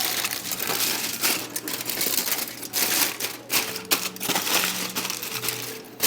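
Aluminium foil crinkling and crumpling in irregular bursts, as racks of baby back ribs are wrapped for the 3-2-1 method.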